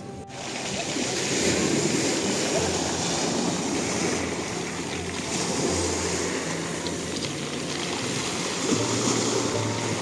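Small sea waves breaking and washing over a pebble beach, the surf swelling and easing every few seconds.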